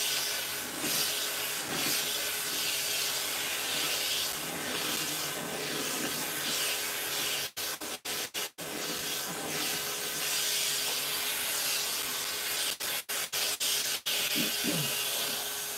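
Pet grooming dryer blowing air through its hose nozzle onto a Persian cat's coat: a steady loud rush of air with a hissing edge. The sound cuts out for a split second a few times around the middle and again near the end.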